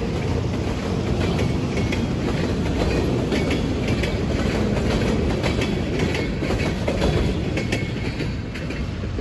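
Empty centerbeam flatcars of a freight train rolling past, their steel wheels clicking and clattering over the rail joints with short metallic squeaks. The sound eases off near the end as the last car goes by.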